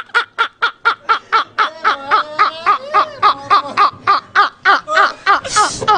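Two men laughing hard together: a rapid, even run of ha-ha bursts, about four a second, their voices overlapping, with a breathy gasp near the end.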